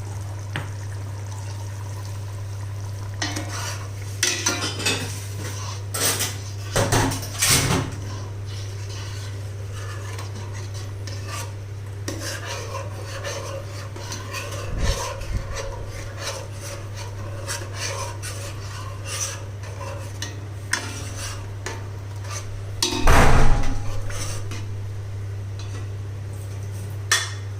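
A spoon knocking and scraping against a cooking pot as the mutton curry is stirred, in scattered clinks, with a louder clatter near the end, over a steady low hum.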